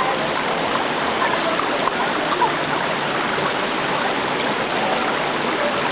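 Mountain valley stream rushing steadily over its bed, a continuous even water noise.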